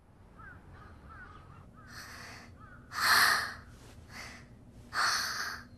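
Crows cawing: a run of harsh caws, the two loudest about three and five seconds in, with fainter caws between. Faint short chirps come before the first caw.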